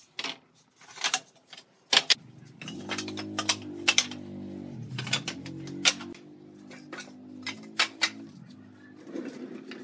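Wooden pallet boards clacking and knocking against one another as they are handled and stacked, in irregular sharp knocks, over a low steady drone in the background.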